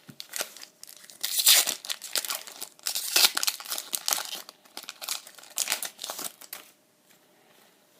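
Foil wrapper of a Pokémon booster pack crinkling and tearing as it is opened, in a run of crackling bursts that stops about a second before the end.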